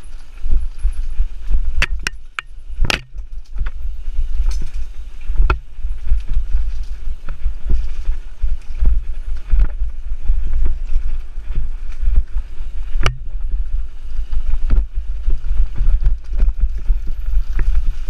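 Mountain bike ridden fast over a rooty dirt singletrack, heard from a mic on the bike or rider: a steady low rumble, with frequent sharp knocks and rattles as the bike jolts over roots and rocks.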